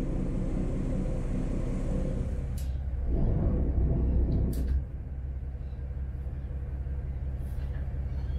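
A ship's inboard engine running low and steady, given a short burst of power about three seconds in that drops back to a lower hum just before five seconds, as the ship is worked forward and astern in a tight turn. Two sharp clicks come during the burst.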